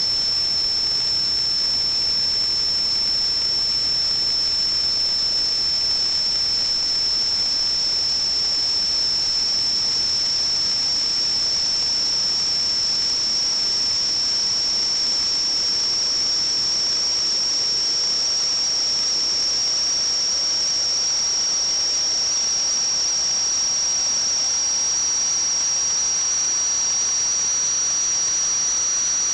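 A steady high-pitched whistle over a constant hiss, its pitch creeping slightly higher toward the end.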